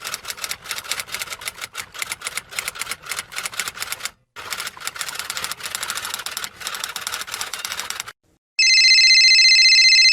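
Rapid typing clicks in two stretches, the second starting after a brief break about four seconds in. Near the end, after a short silence, comes a steady high electronic tone lasting about two seconds.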